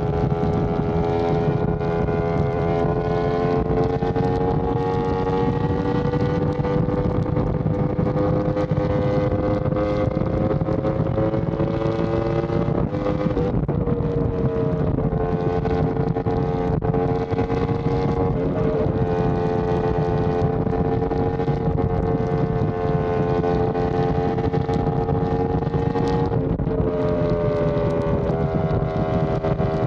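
Yamaha R1M's crossplane inline-four engine through an SC Project exhaust, running steadily at highway speed with wind noise on the microphone. The engine note climbs slowly, then drops in pitch twice, about a third and about seven eighths of the way through, as it shifts up.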